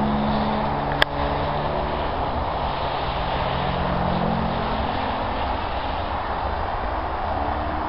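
Radio-controlled model airplane's engine droning in flight, its pitch shifting slowly up and down. One sharp click about a second in.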